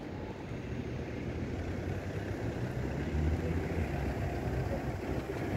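Outdoor street ambience: a steady low rumble of car traffic, swelling slightly about three seconds in.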